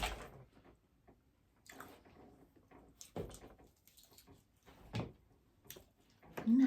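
Scattered short crunches and mouth sounds of someone chewing a crunchy taco.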